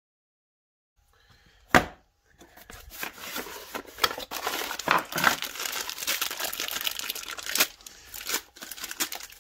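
Silence for about a second, then one sharp knock, then a clear plastic bag around a battery charger crinkling and rustling steadily as it is handled and pulled from its cardboard box.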